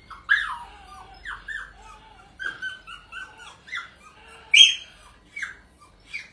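Small dog whining and yelping at a closed door, a quick string of short, high, falling cries with the loudest about halfway through; it is asking to be let out.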